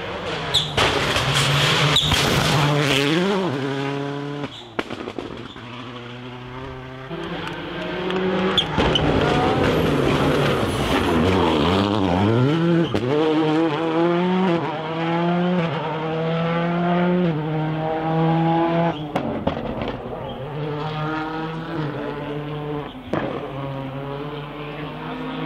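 Skoda Fabia WRC rally cars' turbocharged four-cylinder engines revving hard through the gears on several passes. The pitch climbs and drops with each shift and throttle lift, with a few sharp cracks.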